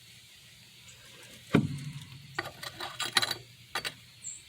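Glassware being handled: one sharp knock, then a quick run of light clicks and clinks of glass on glass.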